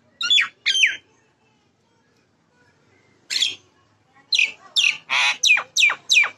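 Common myna calling: two sharp falling notes at the start, a lone note after a pause, then from about four seconds in a fast run of falling notes, about three a second, with a harsher, broader call among them.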